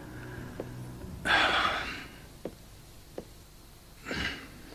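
A person lets out a heavy, breathy sigh about a second in and a shorter breath near the end, with a few faint clicks between.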